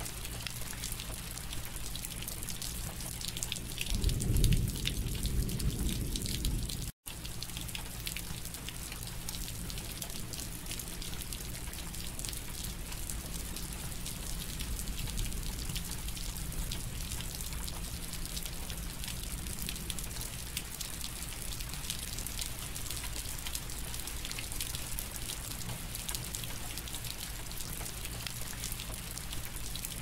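Steady rain falling, a dense patter of drops. A low rumble swells about four seconds in, and the sound cuts out for an instant about seven seconds in.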